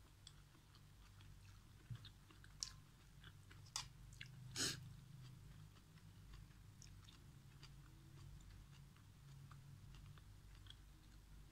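Faint close-up chewing of instant noodles and leafy vegetables, with small wet mouth clicks and a few louder short sounds, the biggest about four and a half seconds in.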